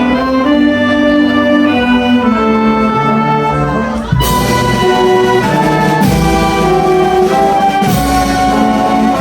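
A wind band (filarmônica) playing live: held chords at first, then about four seconds in the full band comes in louder with brass, marked by heavy strokes roughly every two seconds.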